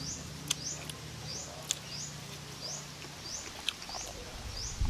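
A small creature's high, short, rising chirp repeating steadily, about three every two seconds, with a few sharp clicks in between.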